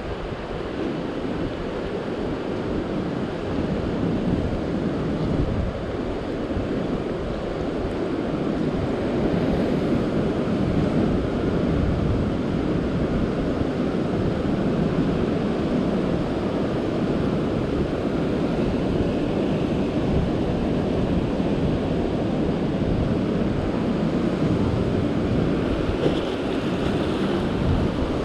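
Sea surf washing over a rock ledge and breaking on nearby rocks, a steady rushing wash, with wind buffeting the microphone. A somewhat louder wash comes near the end.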